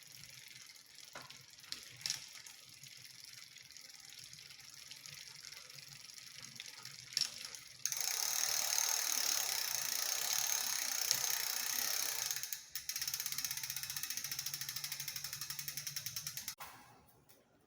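The rear derailleur and chain of an SLP 29er mountain bike, running as the drivetrain is spun, making a loud, rapid, even ticking rattle. This is the derailleur noise the video sets out to show. The rattle starts about halfway through, breaks briefly, runs on and stops shortly before the end, after a few faint clicks earlier on.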